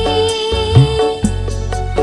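Background music: a melodic instrumental track with sustained notes over a steady beat and deep bass drum hits.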